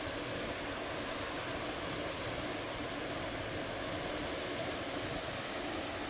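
Steady wash of ocean surf: an even, unbroken noise of breaking waves with no single crash standing out.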